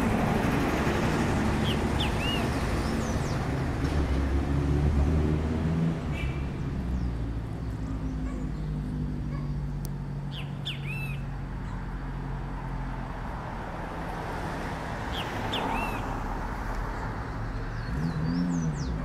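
Great kiskadee calling: short phrases of two or three arched high notes, about five times, every few seconds. A louder steady low rumble runs underneath.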